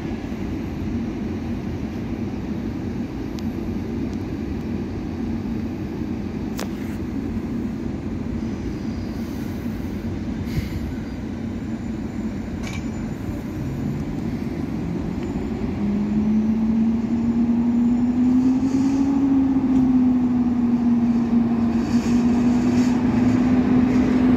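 EU07 electric locomotive pulling away with a passenger train, its running a steady rumble that grows louder over the last ten seconds as it draws near. About two-thirds of the way in, a steady hum comes in, rises slightly, then holds as the locomotive comes close.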